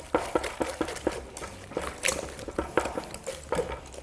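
Wire whisk beating ricotta and powdered sugar in a glass bowl: quick, even strokes, about four a second, each tapping and scraping against the glass.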